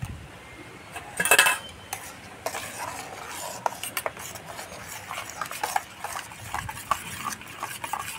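Water poured from a mug into a steel bowl of ground mustard paste, a short splash about a second in, then a steel spoon stirring the paste into a thin mix, clinking and scraping against the sides of the bowl.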